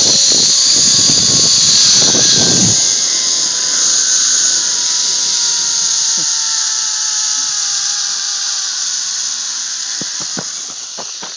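Zipline trolley pulleys whirring along the steel cable as a rider travels the line: a loud, high-pitched whine with a fainter tone that slowly drops in pitch and fades toward the end as the trolley slows. Wind rumbles on the microphone for the first few seconds.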